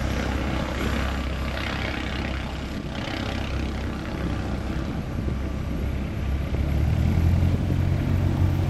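Single-engine light aircraft's piston engine and propeller running at taxi power as it rolls past. A deeper, louder drone comes in about six and a half seconds in.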